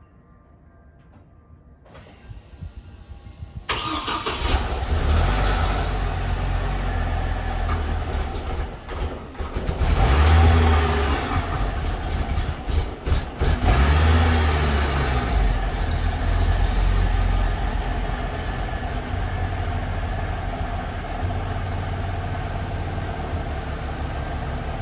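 2008 Hummer H3 with a Magnaflow cat-back exhaust starting up: the engine catches about four seconds in, then runs rough and uneven, surging and dipping for several seconds before settling into a steadier rough idle. It is a random-misfire (P0300) rough start, which the owner believes is caused by soft valve seats in the cylinder head.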